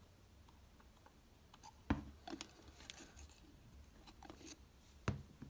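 Faint clicks and scraping as a thin metal blade prises the plastic cap off a moka pot's sound-valve module, with a sharper snap about two seconds in and another near the end.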